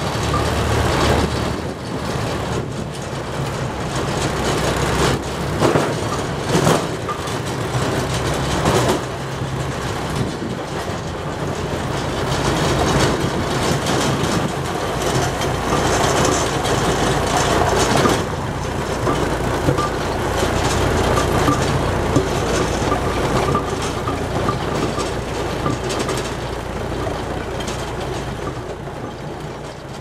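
A tractor's engine running as it slowly pulls an Aveling-Barford road roller, whose steel drums rumble and clatter over the road, with a steady low engine hum throughout.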